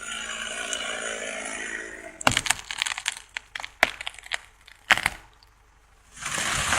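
Chainsaw engine dropping to idle, then a string of sharp cracks and snaps of wood breaking as a felled tree gives way, and a loud rushing crash near the end.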